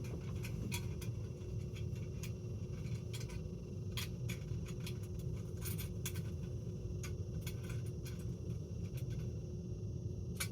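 Light, irregular clicks and scrapes of small metal hardware being handled as a nut is fitted inside an electrical back box, over a steady low rumble.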